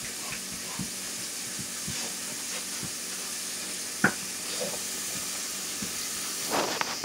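Steady hiss with scattered soft clicks of dogs' claws and paws shifting on a tile floor, and one sharper click about four seconds in.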